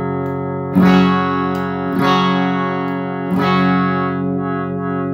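Single-pickup Esquire-style electric guitar with a pine body and GFS Classic bridge pickup, played through an amp in the middle switch position with the tone control in the circuit. Chords are strummed three times, each left to ring before the next.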